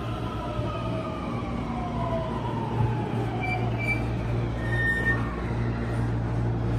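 JR West 223-series electric train slowing alongside the platform, its motor whine gliding down in pitch over a steady low hum. A short high squeal about five seconds in.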